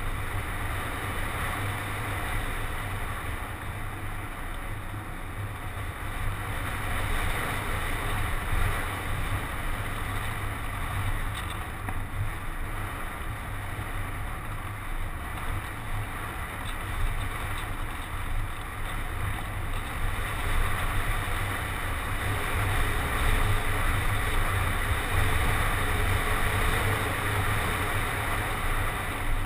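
Airflow rushing and buffeting over a GoPro HD Hero mounted on a Parkzone Radian RC glider in flight. It is a steady rush with a heavy low rumble that swells and eases a few times as the model's speed changes.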